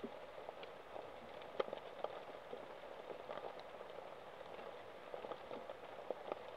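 Steady rain pattering, with many scattered drops ticking, one sharper tick about one and a half seconds in.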